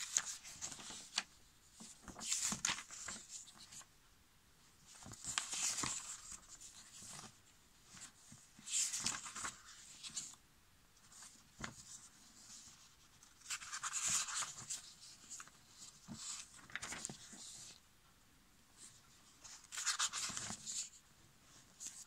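Pages of a newsprint comic book being turned by hand: a papery rustle and flap about every three seconds.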